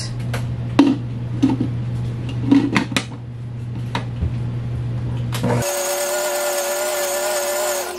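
A few clicks and knocks as the stand mixer's bowl and clear plastic lid are handled, over a low steady hum. About five and a half seconds in, the Nutrimill Artiste stand mixer's motor is heard running with a steady whine as it kneads bread dough.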